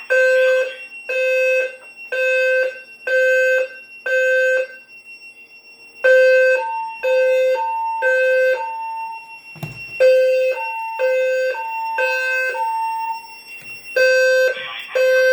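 Fire alarm system in alarm: a loud horn tone pulsing about once a second, with two short breaks. Through the middle a second, higher tone alternates with the pulses, over a faint steady high tone, and there is a single knock about ten seconds in.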